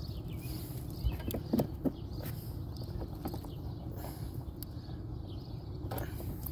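Scattered light knocks and clicks as extension cords and plugs are handled, over a steady low rumble.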